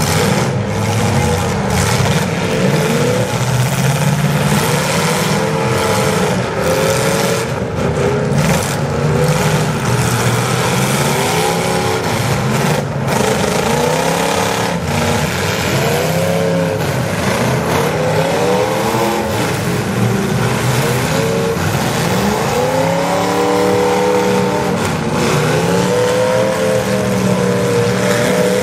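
Demolition derby cars' engines revving hard, several at once, their pitch rising and falling over and over.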